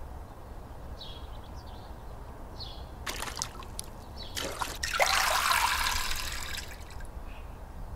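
A wet cloth sloshed in a plastic bucket of water and wrung out, water splashing and trickling back into the bucket from about three seconds in, loudest a second or two later.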